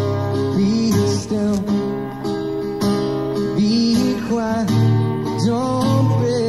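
Solo acoustic guitar strummed in a steady rhythm, playing a passage between sung lines.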